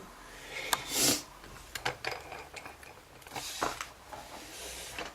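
Dimple key being slid into and turned in a Yale Azbe HS-7 dimple cylinder lock: small metallic clicks, with two short scraping rasps about a second in and past the middle.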